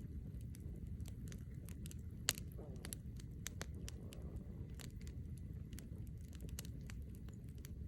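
Campfire crackling, with irregular sharp pops and one louder pop about two seconds in, over a steady low rumble.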